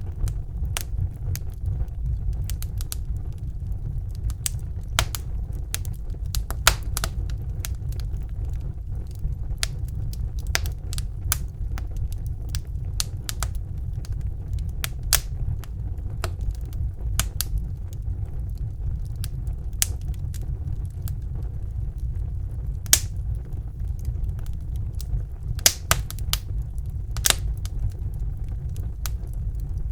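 Wood fire burning in a fireplace: a steady low rumble of the flames with irregular sharp crackles and pops from the burning logs, a few louder pops standing out.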